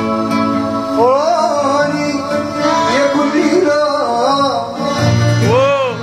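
Live male singing with vibrato and ornamented, bending phrases over acoustic guitar accompaniment. The voice comes in about a second in, after a held note.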